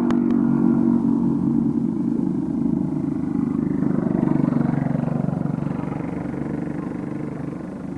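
A motor vehicle engine running, coming in loud at the start and slowly fading toward the end.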